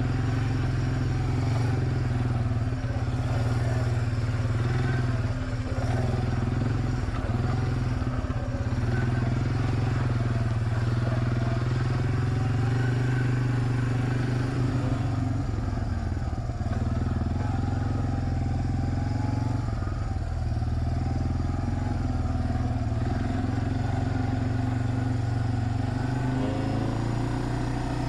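Suzuki 400 ATV engine running steadily while riding a rough, rocky road, its pitch wavering a little with the throttle.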